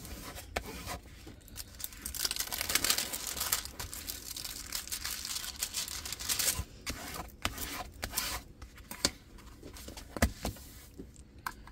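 A diamond-painting canvas on photo paper under its plastic film, rustling and crinkling as it is pressed flat along its centre fold and turned over. A few sharp clicks and taps come near the end.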